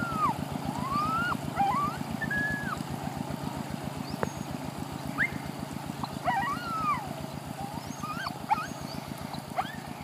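Single-cylinder engine of a two-wheel hand tractor (kou yon) running steadily at a fast, even beat. High whistle-like calls slide up and down over it several times.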